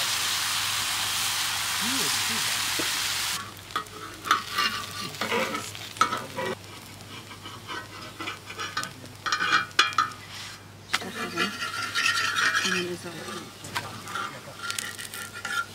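Thin crepe batter sizzling steadily on a hot iron saj griddle as it is ladled and spread; about three and a half seconds in the sizzle cuts off suddenly, and a metal spatula then scrapes and taps irregularly on the iron as the crepe is lifted off.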